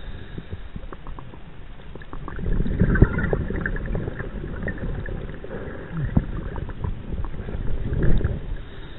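Diver's breathing underwater: bursts of exhaled bubbles rumbling and gurgling past the camera housing, loudest about three seconds in and again near the end, over a low, steady underwater rumble.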